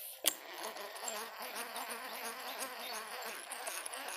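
A flying insect buzzing, its pitch wavering, over a steady high-pitched insect hiss. One sharp click comes just after the start.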